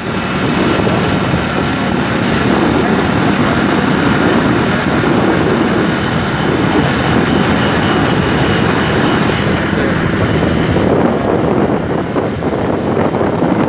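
Motorbike on the move: steady engine and road noise under wind rushing over the phone's microphone. The higher hiss eases off about eleven seconds in.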